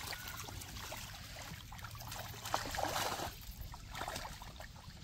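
Water trickling and sloshing around people wading in a pond with a fishing net, with scattered small splashes and clicks.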